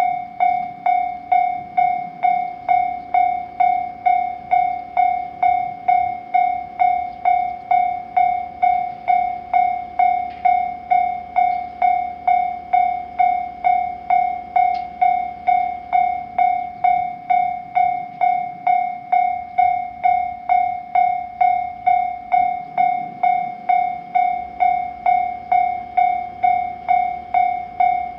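Japanese railroad crossing warning bell ringing steadily at one pitch, about two strikes a second, each strike ringing out before the next.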